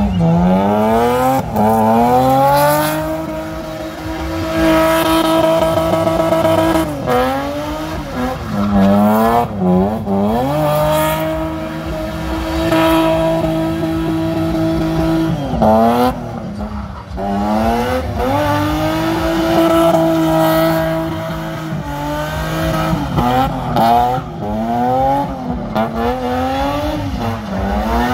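Car engine revved hard and held at high revs while its tyres spin in a smoky burnout, with tyre squeal over a steady hiss. The revs fall and climb again about four times.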